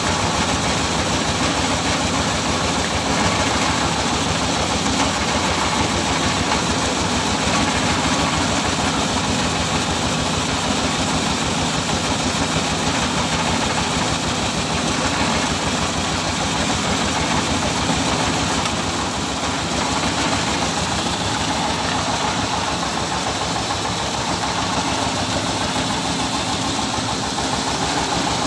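Motor-driven chicken feed mixing machine running steadily with a fast, even pulsing while it discharges mixed feed from its chute.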